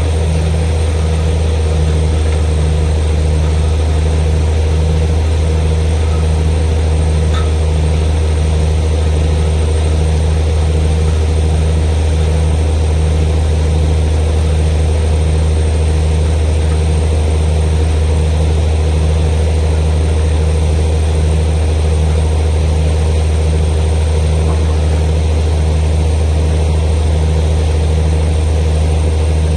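Borewell drilling rig running steadily: a loud, low engine drone with a regular pulsing throb and a thin high whine over it.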